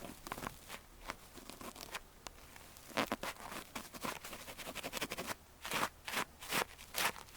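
Ear-cleaning tool scratching and scraping inside an ear for ASMR, in short strokes that come closer together and louder after about three seconds, settling to roughly two strokes a second near the end.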